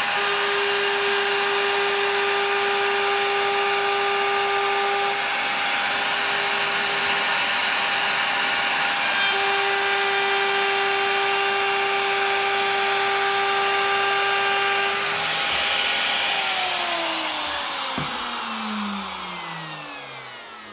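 Bosch 1617EVS router in its plunge base running at full speed, a steady high whine over the noise of the bit routing an edge profile in wood. About sixteen seconds in it is switched off and winds down, its pitch falling away.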